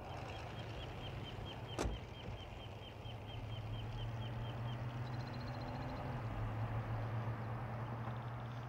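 A vehicle's engine running low and steady as a truck drives slowly along a road, with night insects chirping in an even rhythm of about three to four chirps a second. There is a brief sharp sound about two seconds in.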